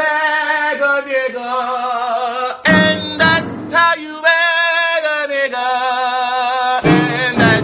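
A solo voice singing long, wavering held notes in a few phrases, with short noisy breaks between them.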